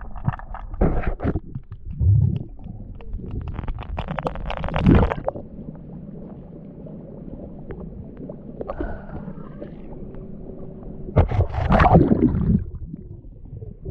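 Muffled water noise picked up by a GoPro in its waterproof housing during a freedive: low rumbling and gurgling, with louder rushing surges about four to five seconds in and again around eleven to twelve seconds in.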